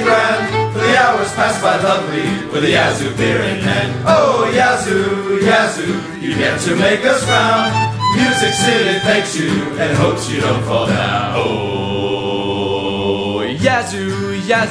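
Fiddle-led bluegrass-style string band music: a lively fiddle instrumental break, with one long held note near the end that cuts off sharply.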